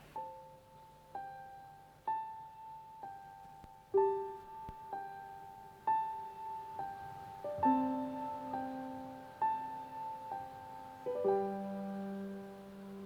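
Solo piano playing a slow song introduction: single ringing notes struck about once a second in the upper middle range, with lower notes joining about halfway through and a deeper held note near the end.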